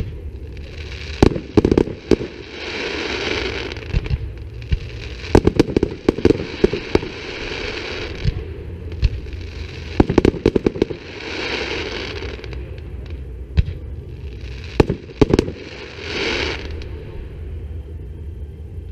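Fireworks display: clusters of sharp bangs from bursting shells, several times, with stretches of crackling from glittering star effects between them.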